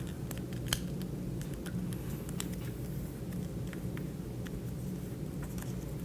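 A square of origami paper being folded and creased by fingers against a tabletop: scattered short paper crinkles and taps over a steady low background hum.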